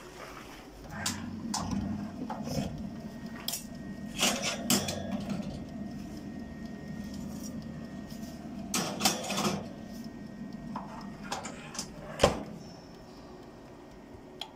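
Metal clinks and clanks from a small electric countertop oven's door and wire rack being handled, in scattered strikes with a cluster about nine seconds in and one sharp clank about twelve seconds in.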